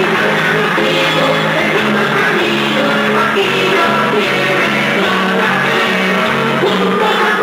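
Music with a singing voice over instrumental accompaniment, playing continuously at a steady, loud level.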